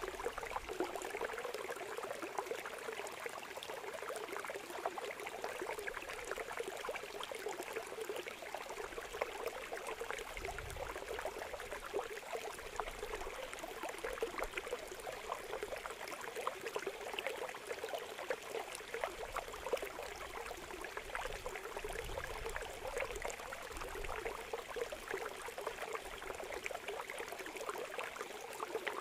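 Shallow water running steadily through a cut in a mud bank, trickling and splashing, with a dense patter of small splashes from the many puti fish carried in the flow.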